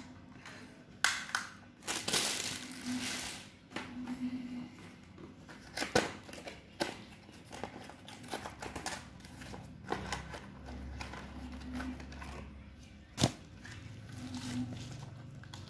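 Plastic packaging being handled and unwrapped, crinkling and rustling in irregular spells, with a few sharp clicks and knocks, the loudest about a second in, at six seconds and near the end.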